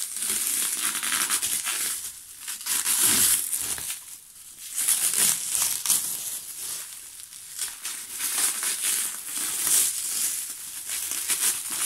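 Clear plastic wrapping film crinkling and rustling as it is pulled and unwound by hand from a parcel, in irregular handfuls with short pauses between.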